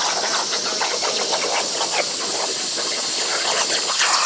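CNC plasma cutter torch cutting a round hole through metal plate: the plasma arc gives a steady, loud hiss with a fine crackle.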